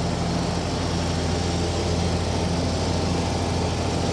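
John Deere lawn tractor's engine running steadily while mowing, an even hum.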